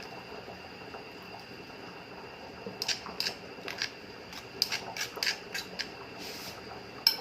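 A kitchen utensil knocking against a bowl in a quick, irregular run of clicks, starting about three seconds in, as the tomato, garlic and vinegar dressing is stirred. A faint steady hiss underneath.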